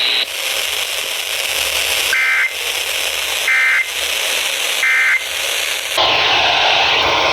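Weather radio static hiss, broken by three short two-tone warbling data bursts about a second and a half apart: the EAS/SAME end-of-message tones closing the severe thunderstorm warning broadcast. Near the end the hiss changes to a rougher noise with a low rumble.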